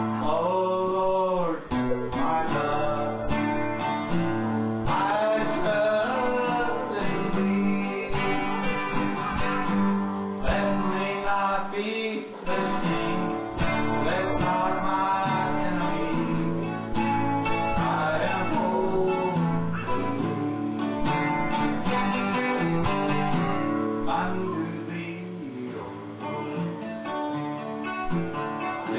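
Acoustic guitar music, plucked and strummed, with a singing voice in places.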